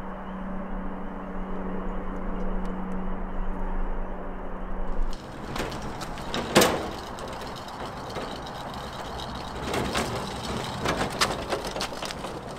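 A steady low hum for about five seconds, then a small boat trailer pulled by hand out of a garage onto the driveway, rolling with scattered clanks and knocks, one sharp clank about six and a half seconds in.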